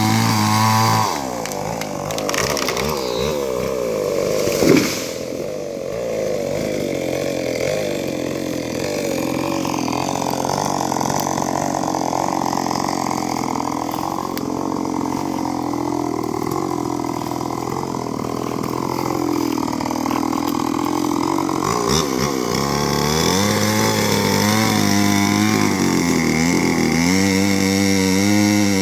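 Two-stroke chainsaw felling a rubber tree, its engine speed dropping and wavering as it works in the cut and rising again near the end. There is a short sharp crack about five seconds in.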